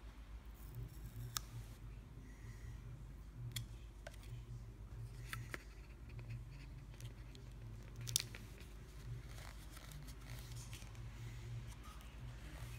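Hands handling a lighter's cardboard box and paper insert: soft rubbing and scraping with a few small clicks, the sharpest about eight seconds in, over a low steady hum.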